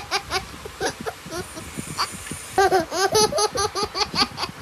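Laughter in quick, rhythmic 'ha-ha' pulses: it trails off in the first second or so and breaks out again in a second, stronger burst about halfway through.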